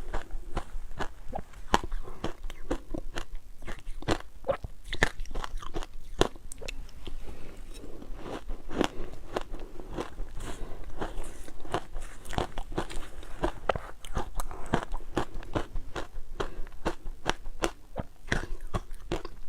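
Ice being bitten and chewed close to the microphone: a rapid, irregular run of sharp crunches and cracks as the cubes break between the teeth.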